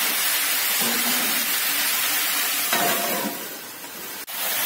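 Cubed potatoes and capsicum sizzling as they fry in oil in an aluminium kadhai, stirred with a metal spatula. Near the end the sizzle drops away sharply as a steel plate is set over the pan as a lid, and a single sharp click follows.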